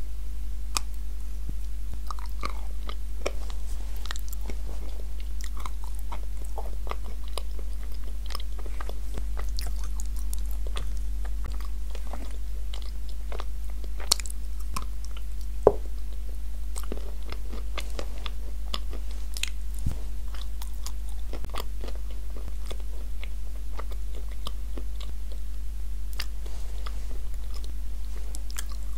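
Close-miked biting and chewing of dry, crumbly pieces of edible clay coated in a moist clay paste: irregular crisp crunches and wet mouth clicks, with one sharper crack about halfway through. A steady low electrical hum runs underneath.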